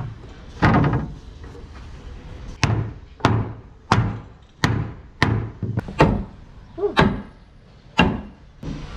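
Hammer blows on timber: about ten sharp knocks at uneven spacing, each with a short ringing tail.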